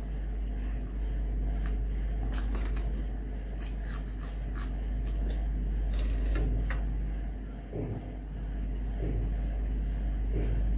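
Close-miked eating: fingers mixing rice on a glass plate and chewing with scattered soft mouth clicks, over a steady low hum.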